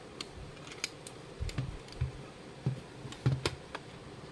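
Hard plastic clock cases clicking and knocking irregularly as they are handled and set down on a wooden tabletop.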